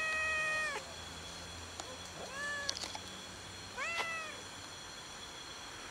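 Long-haired tabby cat meowing: a long meow that ends just under a second in, then two short meows about two and four seconds in. A couple of sharp clicks fall between them.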